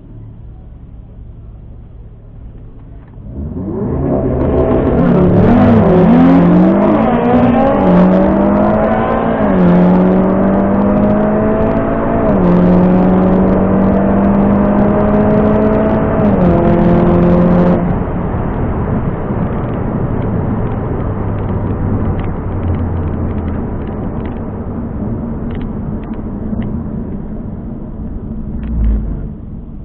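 Tuned 400 hp Volkswagen Golf 7R's turbocharged 2.0-litre four-cylinder, heard from inside the cabin, launching at full throttle about three seconds in for a drag-strip run. The engine note climbs and drops back at each upshift. The throttle is lifted near the middle, and the car then runs on at lower revs.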